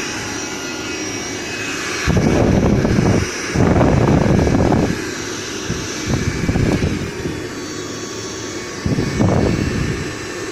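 Hot air gun's blower running with a steady rushing of air, swelling into louder gusts several times.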